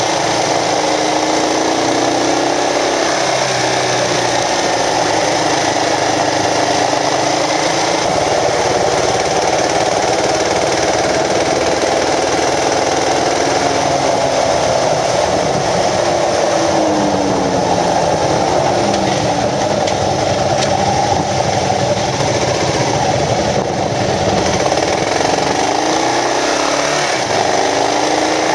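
Kawasaki KLR650's single-cylinder four-stroke engine running while riding, its pitch rising and falling several times with throttle and gear changes, over steady wind and road noise.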